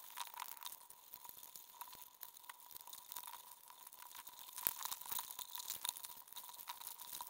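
Dense, irregular underwater clicking and crackling, typical of Dungeness crabs crawling over and picking at a baited crab trap, with one louder click a little before five seconds in. A faint steady whine runs underneath.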